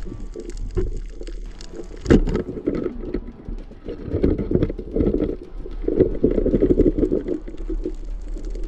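Underwater sound through a camera housing: the bubbling rumble of a diver's exhaled air, in long bursts about four and six seconds in. A sharp knock about two seconds in as the spear is driven into the coral.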